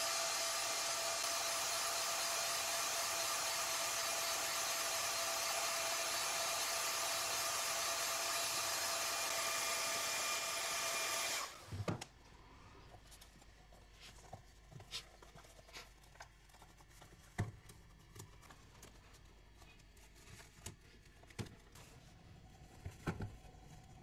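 Hot air gun running steadily, a constant blowing hiss with a steady whine, heating a PVC pipe to soften it. It cuts off abruptly about halfway through, leaving faint scattered taps and knocks as the softened pipe is handled with gloved hands.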